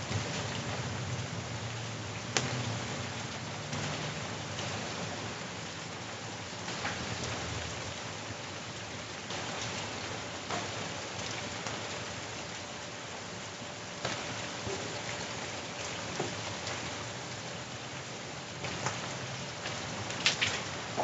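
Heavy rain falling steadily, with sharp single knocks of hailstones striking a hard surface every second or few, the loudest near the end. A low thunder rumble fades out over the first few seconds.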